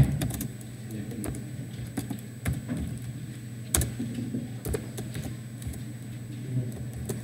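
Typing on a computer keyboard: irregular keystroke clicks, one louder than the rest nearly four seconds in, over a low steady hum.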